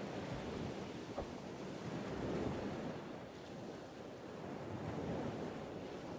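Sea surf breaking and washing over rocks, a steady rush that swells twice as waves come in.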